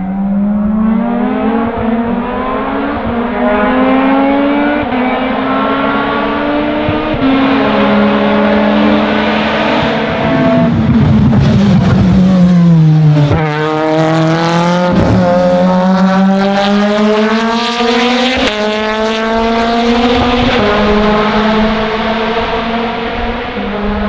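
Supercharged Toyota 2ZZ-GE 1.8-litre four-cylinder engine of a Lotus 2-11 race car at full throttle, its pitch climbing and dropping back with quick upshifts. Near the middle the pitch falls steadily, then it accelerates again through several more upshifts.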